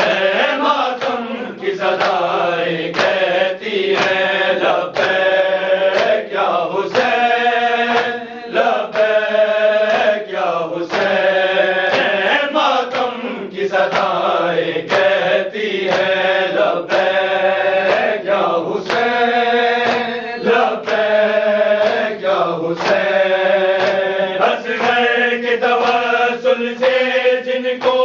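Group of men chanting a noha (a Shia lament) in unison, with a steady beat of open-hand chest-beating (matam) slaps keeping time under the voices.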